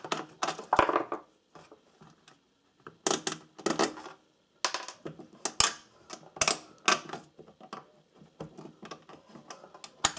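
Irregular metallic clicks and clatters of cable lugs and small terminal nuts being handled as the polarity leads inside a MIG welder's wire-feed compartment are swapped over.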